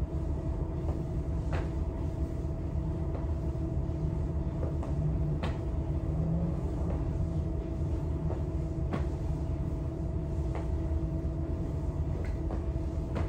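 A steady low room hum and rumble, with a light sharp tap or thud every few seconds as feet land on the rubber gym floor during a bodyweight exercise.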